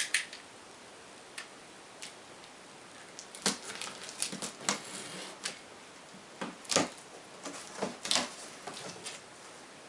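A knife slitting and peeling the cellophane wrapping on a cardboard box: a scatter of short crackles and scratches that starts a few seconds in.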